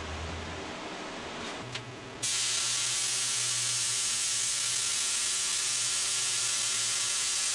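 Hypertherm plasma cutter cutting steel plate: a loud, steady hiss with a low hum under it starts suddenly about two seconds in. Before it there is a quieter hum and a single click.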